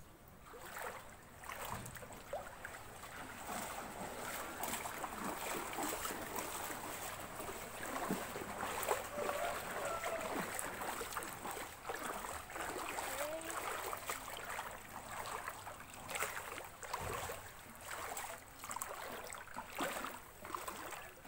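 Floodwater sloshing and splashing around legs wading through it, an uneven run of swishes that carries on throughout.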